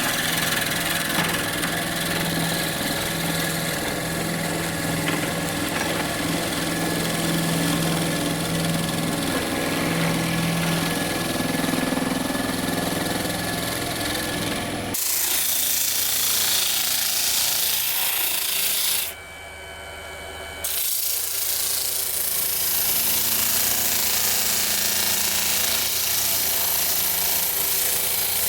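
Woodworking lathe running while the spinning driftwood-and-resin piece is worked, a steady motor hum under scraping noise of the workpiece. The sound changes abruptly about halfway through and drops out briefly a few seconds later before resuming.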